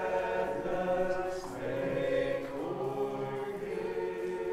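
Congregation singing a hymn a cappella in several voice parts, holding long notes and moving from chord to chord.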